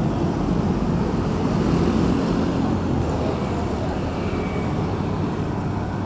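Road traffic on a busy city street: motorbikes and cars passing, a steady rumble of engines and tyres.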